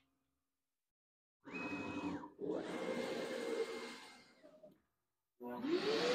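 Onefinity Elite Foreman CNC router's gantry motors running as the machine makes a move of about three seconds. About five and a half seconds in, the PwnCNC router spindle starts up with a whine that rises quickly in pitch and then holds steady.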